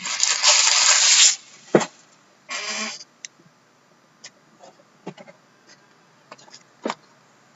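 Packaging of a sealed SPx hockey card box being torn open: a long rip of about a second, a sharp knock, then a shorter rip. Light clicks of packs and cards being handled follow.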